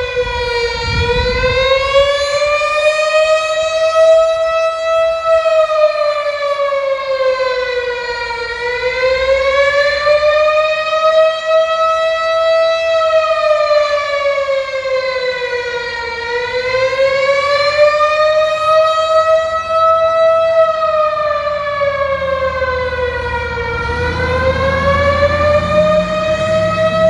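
Outdoor tornado warning siren sounding a continuous wail, its pitch gliding slowly up and down about every eight seconds.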